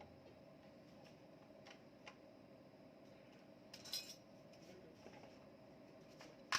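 A few faint metallic clinks of tools and engine parts being handled, with the loudest cluster about four seconds in and a sharp click right at the end.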